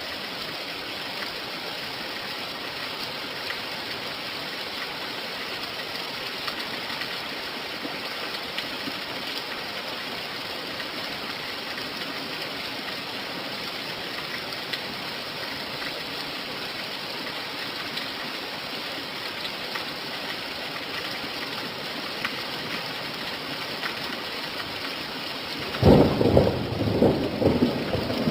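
Steady rain hissing. Near the end, a sudden loud rumble of thunder breaks in and keeps rolling.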